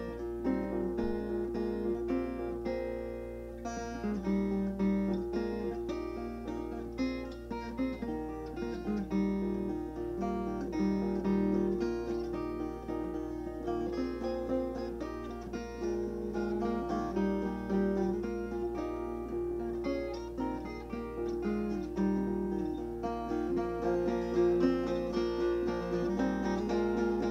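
Background music played on acoustic guitar: plucked notes in a steady run.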